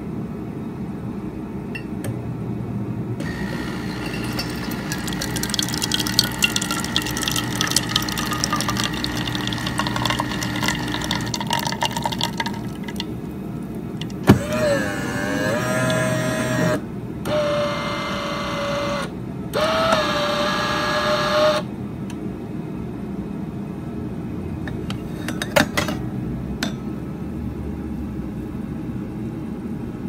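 Café Affetto automatic espresso machine making an espresso. Its built-in grinder runs for about ten seconds with a gritty whir. Then the 20-bar pump hums in three spurts with short breaks as the shot is pulled.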